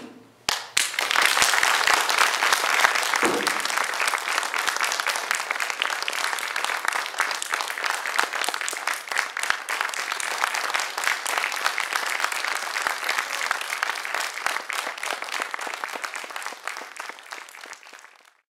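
Audience applauding: a dense, steady clapping that starts about a second in and cuts off suddenly near the end.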